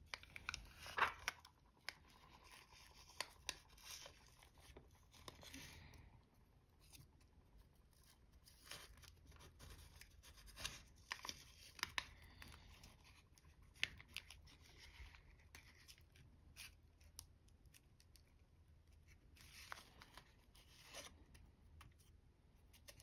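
Aluminium foil crinkling and crackling faintly as fingers fold and crease a small flap, in scattered bursts of soft crackles and clicks, busiest at the start and again near the end.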